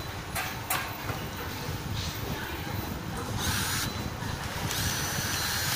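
Two sharp plastic clicks as a protective guard is pressed onto a drone arm. Then a handheld electric screwdriver runs in two short bursts, the second about a second long, driving the guard's screws. A steady workshop noise lies under it all.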